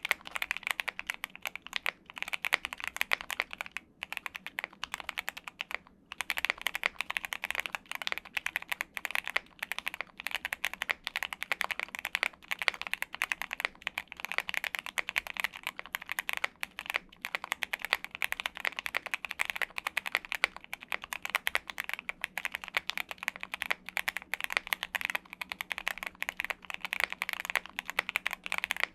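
Continuous fast typing on a Thera75 V2 75% custom mechanical keyboard, with dense key clacks and brief pauses about four and six seconds in.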